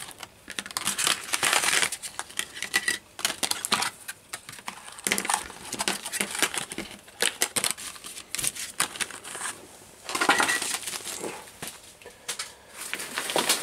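Clear plastic blister packaging crinkling and crackling as it is handled and opened, in bursts with short pauses between, along with light clicks and knocks of small items set down on the mat.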